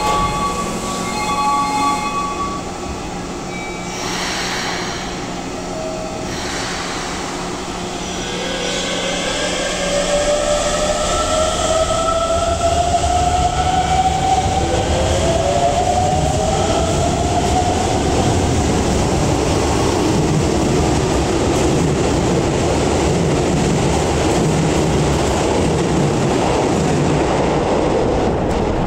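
Hokuso Railway 7300 series train pulling out of an underground station. After a few brief steady tones, its traction motors whine and rise in pitch as it accelerates, and the rumble of wheels on rail builds and holds as the cars run past.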